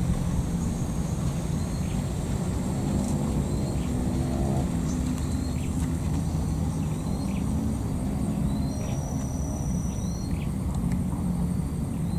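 Forest ambience dominated by a low steady droning hum, with a short high chirp repeating about every second and a half and a thin high whistle held for about a second and a half near the end.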